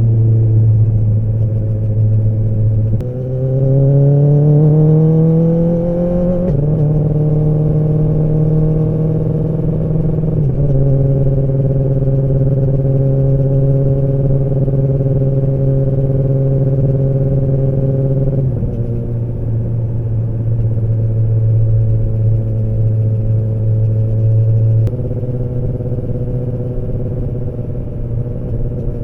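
Kawasaki ZX-10R inline-four engine and exhaust running steadily. About three seconds in it accelerates, its pitch rising for a few seconds, then drops at a gear change. The note steps lower a few more times and holds steady between the steps.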